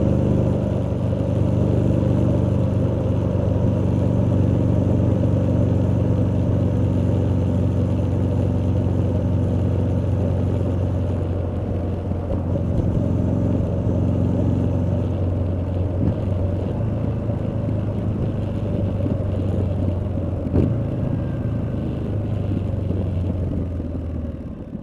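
2019 Triumph Street Scrambler's 900 cc parallel-twin exhaust at a steady cruise. About halfway through, the engine note weakens as the throttle comes off and the bike slows.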